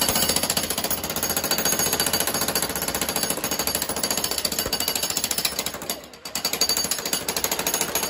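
Electric jackhammer (demolition hammer) breaking concrete block, a rapid, steady hammering that drops out briefly about six seconds in and then starts again.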